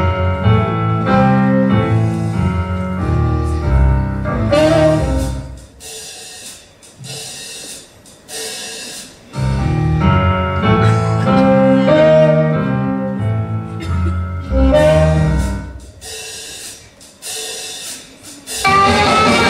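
Jazzy instrumental dance break of a stage-musical number, with no singing. Loud full-band passages over a strong bass line twice drop to quieter stretches of short accented hits before the band comes back in.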